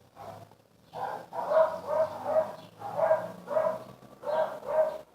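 A dog barking repeatedly: about ten short barks in quick runs, starting about a second in.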